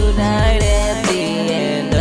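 Instrumental music with a steady low beat and held melody notes.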